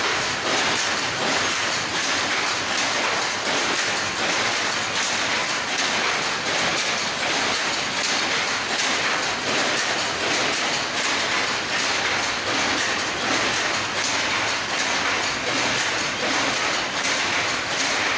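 Power loom running: a loud, steady, rhythmic clatter of weaving machinery.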